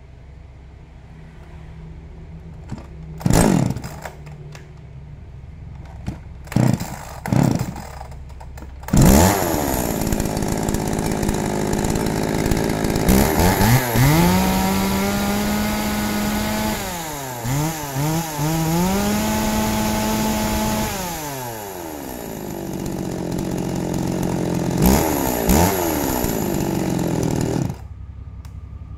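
Used Shingu 40cc two-stroke chainsaw being pull-started: a few short pulls of the starter cord, and it catches about nine seconds in. It is revved up and held twice, with a few quick blips in between, falls back to a lower speed, and is switched off suddenly near the end.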